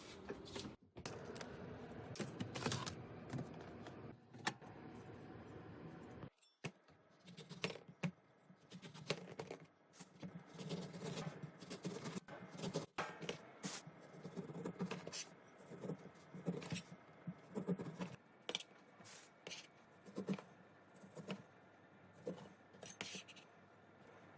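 Close-up food-handling sounds: irregular clicks, taps and scrapes of food, packaging and tableware being handled. The background changes abruptly about six seconds in.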